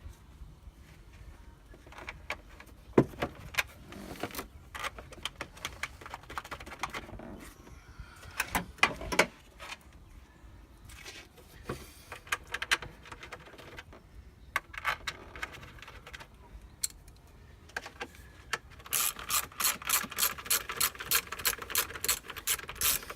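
Engine-bay parts and hand tools being handled, with scattered clicks and knocks. Near the end a ratchet wrench clicks rapidly and evenly, about five clicks a second.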